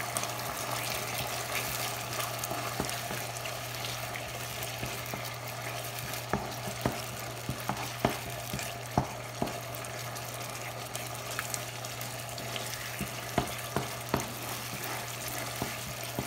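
Canned sardines in tomato sauce sizzling in a frying pan as a wooden spoon stirs and mashes them, with scattered short knocks of the spoon against the pan, most of them in the second half. A steady low hum runs underneath.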